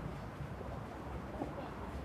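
Outdoor ambience at a public park's tennis courts: a steady low rumble of background noise, with no clear ball strikes or voices.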